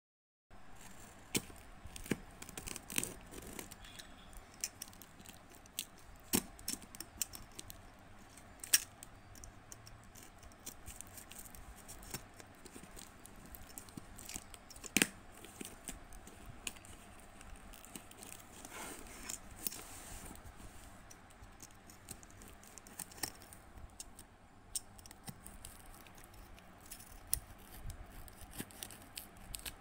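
Scissors snipping and scraping along the packing tape of a small cardboard parcel, in scattered sharp clicks as the tape is cut open.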